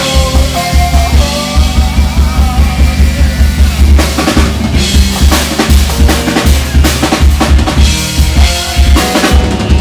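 Live band playing an instrumental stretch of a song: a drum kit keeps a steady beat with a heavy bass drum and snare under bass and electric guitar.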